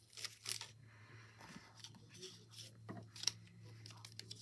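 A stack of die-cut paper ephemera pieces rustling and ticking as they are handled and shuffled by hand, in a few brief, scattered touches, the sharpest about three seconds in, over a faint steady low hum.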